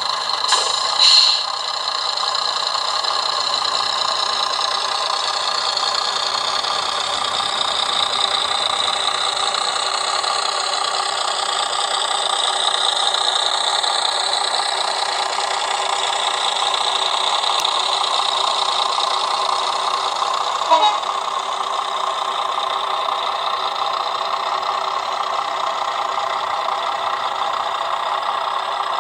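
Model Class 121 diesel railcar's sound decoder playing a diesel engine running through its small on-board speaker, the engine note slowly rising and falling as the model moves. Brief sharper sounds come about a second in and again around 21 seconds.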